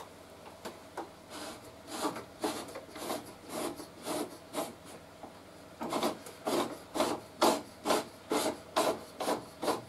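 DeWalt DW745 table saw's rack-and-pinion rip fence being slid back and forth along its rails, a rubbing, rasping stroke about twice a second. The strokes start about a second in and grow louder about halfway through.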